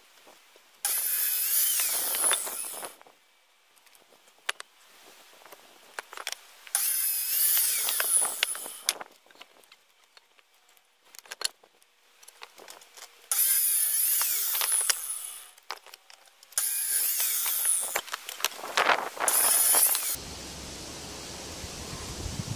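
A power tool running in five short bursts of one to two seconds each, with small clicks and knocks between them, while table legs are being made.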